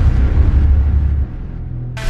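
Background music: a deep, sustained low boom whose upper range fades away, dropping quieter a little past halfway and leaving only a low drone.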